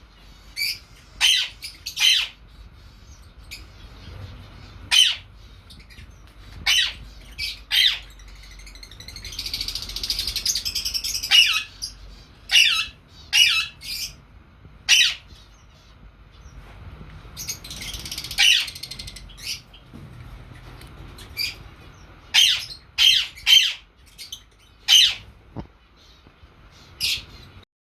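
Lovebirds calling: short, shrill squawks repeated irregularly, with two stretches of softer rapid chattering.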